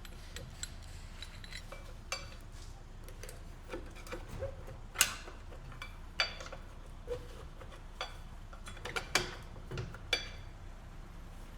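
Scattered metal clinks and sharp knocks from hand tools and the steel rear brake drum and hub as the drum is worked off the axle, with the loudest clank about five seconds in.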